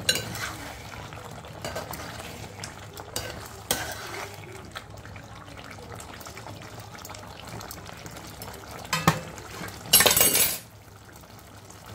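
Metal spoon stirring a simmering potato-tomato curry in an aluminium pot, scraping and clinking against the pot over a steady sizzle, with a few sharp knocks. A brief loud noise of about half a second comes about ten seconds in.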